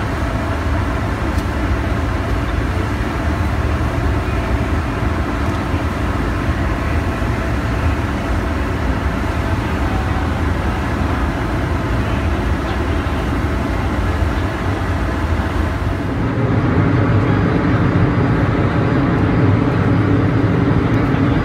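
Steady machinery hum with a deep rumble from a large moored warship's onboard machinery. About 16 s in it grows louder and deeper.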